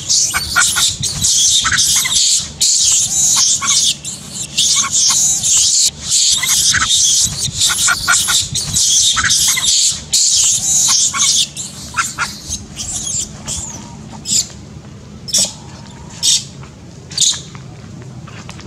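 A young macaque screaming in distress, shrill cries repeated almost without a break, then a handful of separate short shrieks over the last several seconds.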